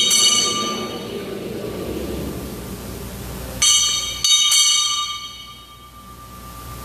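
Altar bells rung at the elevation of the host during the consecration, marking the moment the priest raises it. There is one ringing at the start and two more close together about four seconds in, each dying away.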